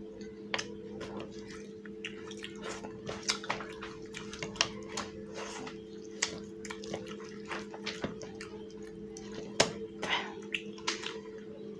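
Wet eating sounds of fish curry and rice eaten by hand: irregular short smacks and squishes from fingers working through curry and picking at a fish head, and from the mouth. A steady low hum runs underneath.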